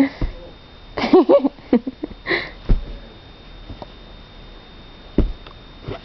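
A small Maltese-type dog snuffling and snorting in short bursts through its nose during the first couple of seconds. A couple of soft dull knocks follow, then it goes quieter.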